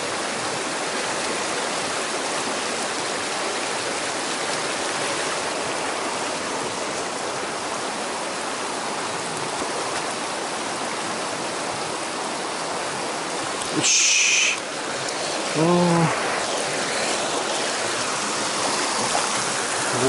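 Mountain stream rushing steadily over rocks. About two-thirds of the way through there is a brief shrill sound, followed a couple of seconds later by a short low vocal sound.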